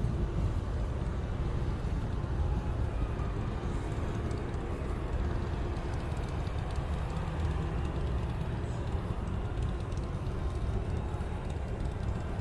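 Outdoor street ambience: a steady low rumble of vehicle traffic with no single event standing out.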